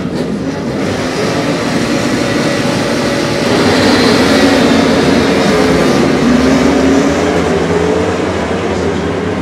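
A full grid of superbikes revving hard and launching off the start line together. Many engine notes climb in pitch at once as the pack accelerates away, loudest from about four to seven seconds in.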